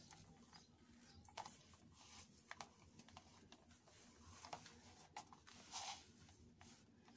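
Faint, scattered clicks and taps of glossy plastic Kate Spade jelly flats moving against a wooden floor and the wearer's feet, with a short scuff a little before the end. Some clicks carry a brief high ring, like the small metal charms of an anklet jingling.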